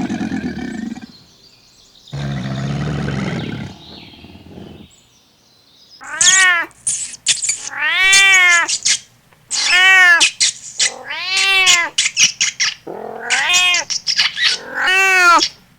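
A cat meowing over and over: about eight short meows, each rising then falling in pitch, in the second half. Two lower, rougher animal calls come near the start.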